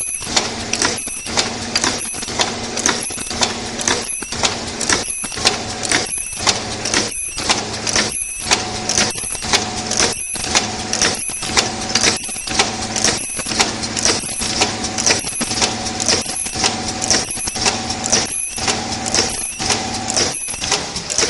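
Automatic face-mask production machine with ultrasonic ear-loop welding running: a steady machine hum with a repeating mechanical stroke about twice a second. A higher steady tone joins about eight seconds in.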